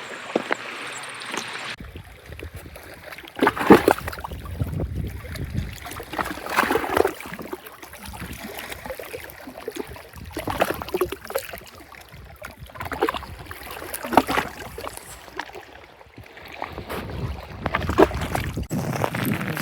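Small waves lapping and splashing irregularly against a rocky shoreline every couple of seconds, with wind rumbling on the microphone.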